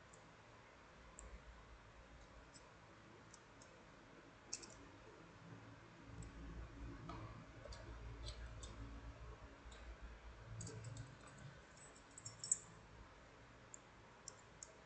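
Faint, scattered clicks and light taps of metal wire puzzle pieces being handled, with a soft low rumble in the middle and one sharper click near the end.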